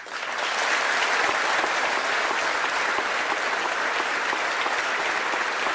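Audience applauding steadily after a line in a speech.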